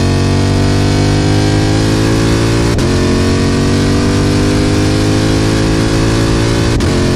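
Tuned 2020 Shelby GT500's supercharged 5.2-litre V8 accelerating hard through the gears, heard close to the exhaust tips. The pitch climbs steadily, breaks with a quick upshift about three seconds in, then climbs again to another shift near the end. The exhaust is a custom build with an X-pipe and no catalytic converters.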